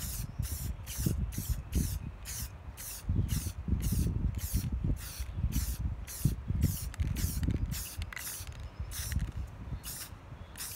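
Aerosol spray paint can sprayed in short, quick hissing bursts, about two or three a second, with the bursts coming further apart near the end. The short pulses lay down a light coat of paint rather than one heavy spray.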